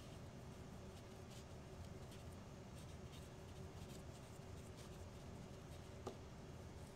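Faint scratching and rubbing of a cotton applicator working cold bluing into the grooved steel of a Hales grenade body, a few scattered scrapes with a small click about six seconds in, over a low steady hum.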